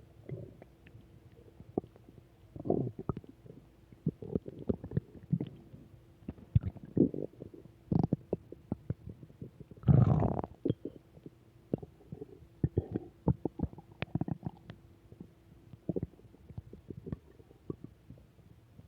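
Human stomach growling and gurgling in irregular short bursts and pops, with a longer, louder rumble about ten seconds in.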